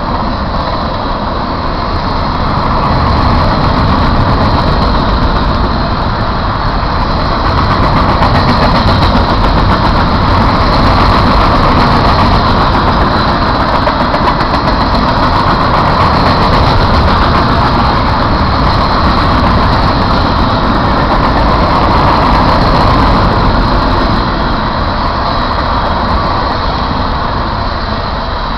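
Loaded freight cars of a garbage train rolling past close by: a steady, loud rumble of steel wheels on the rails. It swells a few seconds in and eases off near the end.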